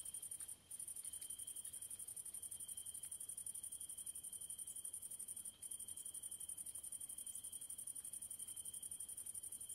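Grasshoppers stridulating: a faint, high-pitched, rapidly pulsing chirr with a steadier, lower continuous tone beneath it. The chirr breaks off briefly twice, about half a second in and again past the middle.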